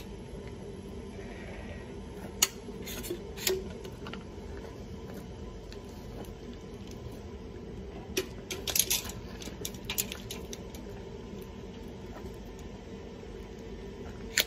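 Sharp clicks and light metallic clatter from handling a caulking gun and tools, in two short clusters about two and eight seconds in, over a steady low hum.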